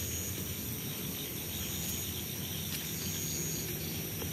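Steady chorus of crickets and other night insects, with an even background hiss.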